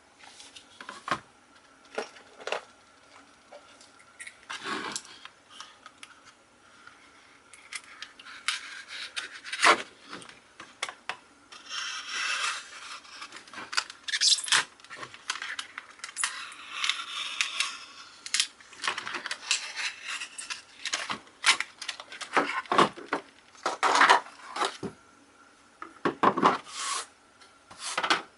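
A pocket knife's packaging and wooden presentation case being handled and opened: a run of small clicks, taps and knocks, with a couple of longer scratchy stretches in the middle.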